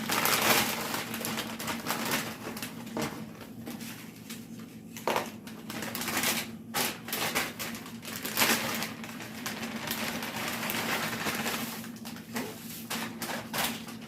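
Tortilla chips being handled and shifted in a container, with irregular crunching and rustling and light clicks, over a faint steady hum.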